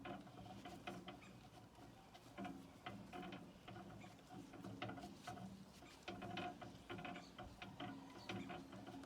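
Paintbrush strokes spreading varnish over a wooden tabletop: quiet, repeated brushing in short groups, with light ticks from the brush.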